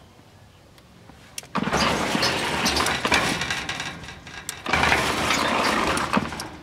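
AGL Soft Rápido sliding-gate opener motor driving the gate along its rack during a test of the brake setting, which is meant to stop the gate at the limit switch. It runs for about two and a half seconds, stops briefly, then runs again for about a second and a half before stopping.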